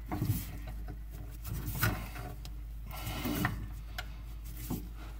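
Handling noise of a pop-up sink drain's linkage being fitted: several short knocks and clicks about a second apart, with light rubbing, as the rubber connector is worked onto the pivot rod and lift rod.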